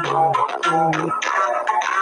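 Background music with a steady beat, plucked-string and bass notes, the bass dropping out about a second in.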